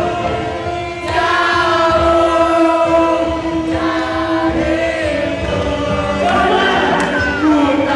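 Music with a group of voices singing together, holding long notes.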